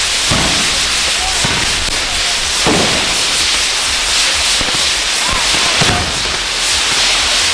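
Ground fireworks burning with a loud, steady rushing hiss, broken by about five dull pops.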